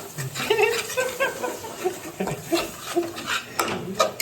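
A person's voice laughing and chuckling, with a few sharp clinks of cooking utensils near the end.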